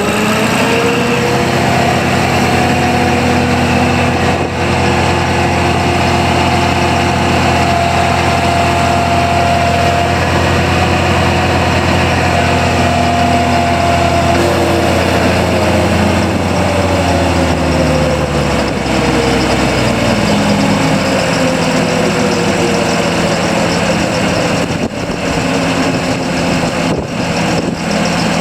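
Walk-behind mini skid steer running a 48-inch brush cutter attachment: a steady engine note with a whine that climbs in pitch right at the start, holds level, then slowly falls over the second half.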